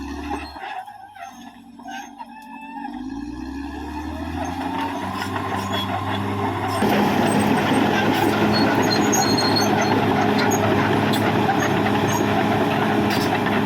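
Caterpillar D6R XL bulldozer's diesel engine running, building up over the first few seconds, then abruptly louder and steady from about halfway on.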